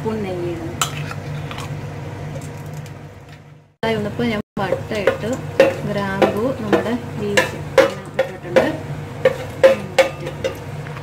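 Whole spices sizzling in hot oil in an aluminium pot as a wooden spoon stirs them, the spoon knocking sharply against the pot many times in the second half. A steady low hum runs under the first few seconds.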